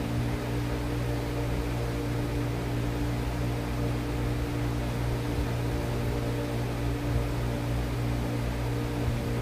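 Steady machine hum with several fixed tones over an even hiss, unchanging throughout.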